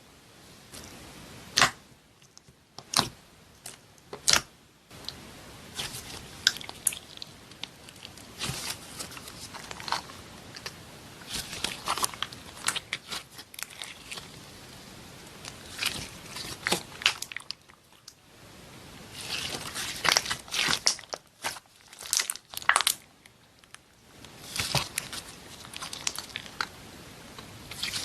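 Slime being squeezed and pressed by hand, giving irregular sharp clicks and pops, some single and some in quick clusters.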